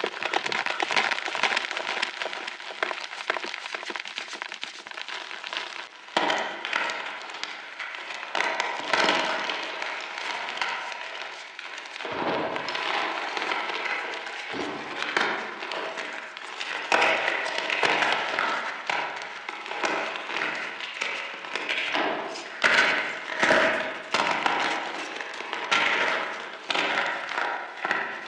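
Reformed chalk chunks crunching and crumbling in a continuous dense crackle, with many louder sharp cracks throughout.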